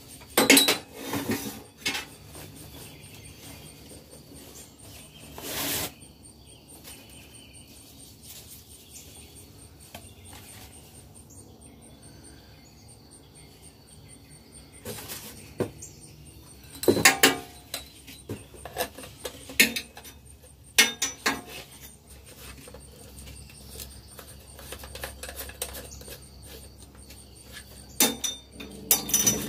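Handling noises from a full-face respirator mask and its corrugated rubber breathing hose with a metal fitting: scattered sharp clicks and knocks with a few short rustles, in irregular clusters.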